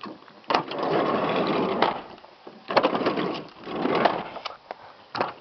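A 2000 Dodge Caravan's door being worked by hand: sharp clicks of the handle and latch, and three rattling stretches of the door moving, the first lasting over a second.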